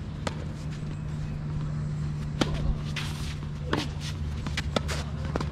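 Tennis ball being struck and bouncing: a handful of sharp, short pops spaced irregularly over a few seconds, with a steady low hum underneath.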